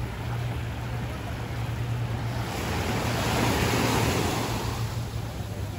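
Small surf breaking and washing up a sandy beach. One wash swells louder about three seconds in, then draws back.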